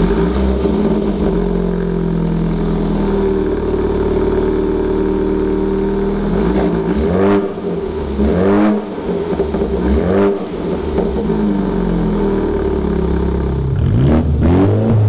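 Mini JCW Clubman's turbocharged 2.0-litre four-cylinder running through a newly fitted Remus race cat-back exhaust in normal mode, at a steady high idle just after start-up. A few short rev blips rise and fall midway, and a quicker run of blips comes near the end.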